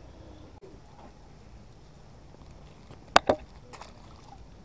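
Two sharp knocks in quick succession, about three seconds in, over a steady low background rumble.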